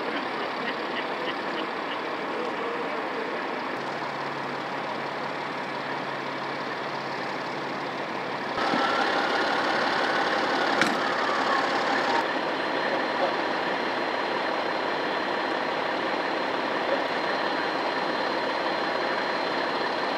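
Emergency vehicles' engines idling at a roadside scene: a steady rumble and hiss, with the background changing abruptly twice between shots. There are a few quick ticks near the start and a sharp click about halfway through.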